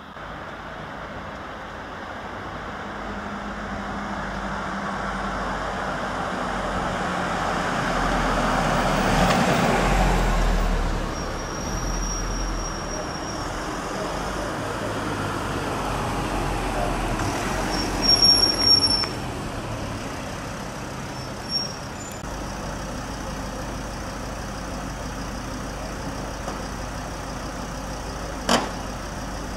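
Emergency vehicles' engines running in the street, one heavy vehicle approaching and driving past, loudest about ten seconds in. Brief high squeals come around twelve and eighteen seconds, and a sharp knock comes near the end.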